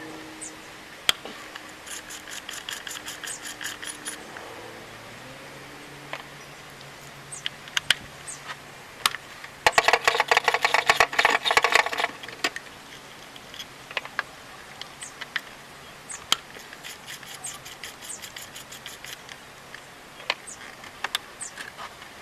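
Ratchet wrench clicking in short, even runs, loudest in a fast run of about two seconds near the middle, with scattered single clicks and knocks of tools and parts against the engine.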